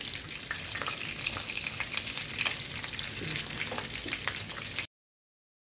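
Breaded mince-stuffed onion rings shallow-frying in oil in a pan on a low flame: a steady sizzle with scattered pops and crackles. The sound stops abruptly shortly before the end.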